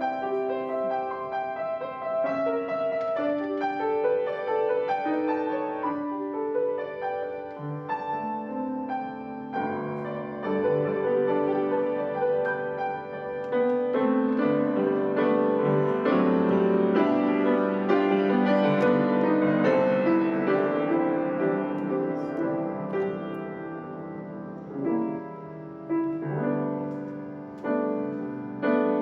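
Solo piano playing a slow, gentle piece, chords sustained and swelling louder through the middle before softening into separate phrases near the end.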